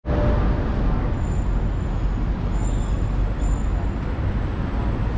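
City street traffic noise at an intersection: a steady, rough rumble of passing cars and engines, heaviest in the low end. Faint high thin tones come and go between about one and three and a half seconds in.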